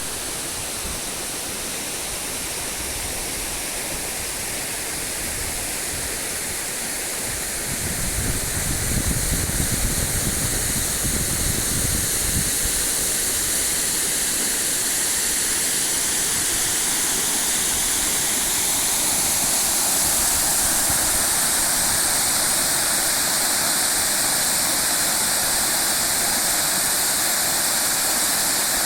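Waterfall pouring: a steady rush of falling water, with a low rumble swelling from about 8 to 12 seconds in.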